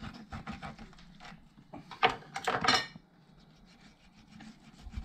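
Kitchen knife cutting and scraping through a raw catfish fillet on a wooden cutting board: a run of short taps and scrapes, loudest for about a second some two seconds in.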